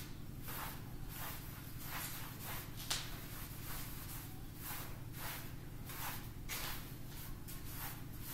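Cloth duster wiping a chalkboard: soft rubbing strokes, about two a second.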